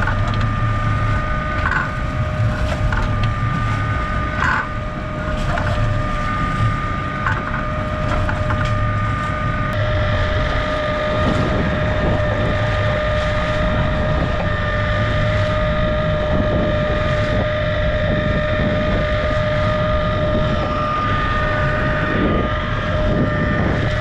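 Sportfishing boat's engines running steadily, with a constant whine over a low rumble, and wind on the microphone.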